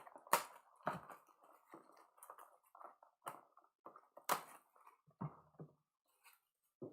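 Faint crinkling and handling noises from a trading-card hobby box and its packs being opened and handled, with a few sharp taps, the loudest about four seconds in.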